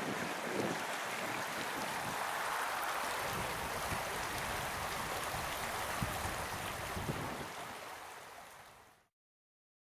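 Shallow, rocky stream rushing and splashing over stones in a steady wash of noise, fading out near the end into silence.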